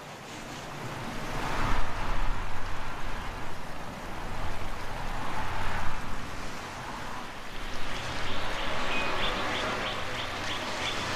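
Rushing wind noise that swells and eases twice, over a low steady rumble. Near the end a bird gives a quick run of short, high chirping calls.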